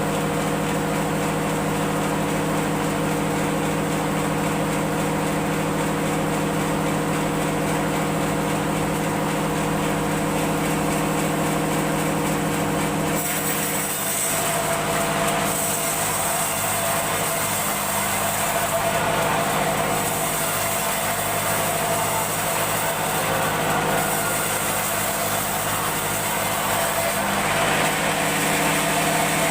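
A woodworking machine running steadily with a droning hum. About thirteen seconds in, the hum changes and a higher hiss rises over it, continuing to the end.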